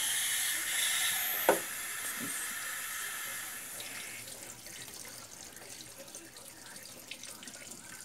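Pressure cooker letting off steam through its valve after cooking: a steady hiss that is loud at first and fades gradually as the pressure drops. A single sharp metal knock comes about a second and a half in.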